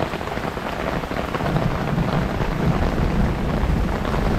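Heavy rain pouring onto a river's surface, a dense, even hiss of drops striking the water. From about a second and a half in, a low rumble builds under it and the whole sound grows a little louder.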